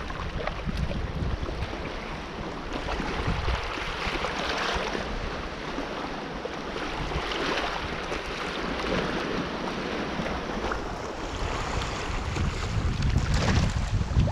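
Black Sea waves washing in, swelling and falling back every few seconds with a stronger surge near the end, and wind buffeting the microphone.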